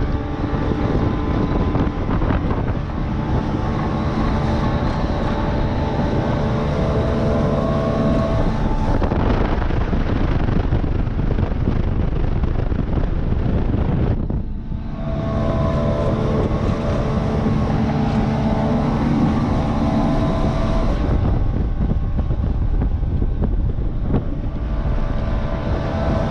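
Boat engine running steadily under heavy wind buffeting the microphone, with a short dip in level about halfway through.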